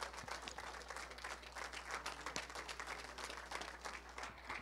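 Congregation applauding: many hands clapping steadily in a church sanctuary.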